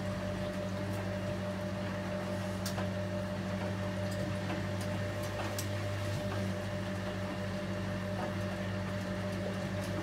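Hotpoint Liberator 1826 washing machine running with a steady low hum and faint water sounds, with a few light clicks.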